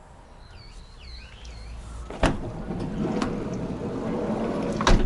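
A sharp knock, then about three seconds of scraping and rattling, ending in another sharp knock, as of something being dragged or slid. A few faint bird chirps come before it.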